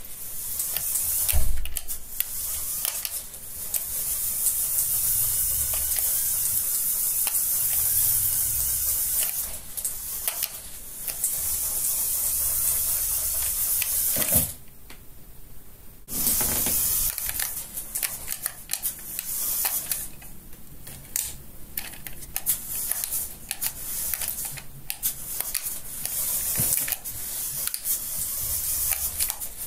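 CaDA brick-built RC buggy's electric drive motor and plastic gearing whirring with a high hiss as it drives. There is a loud knock about a second and a half in. The whirring cuts out for a second or two about halfway, then returns in stop-start spurts.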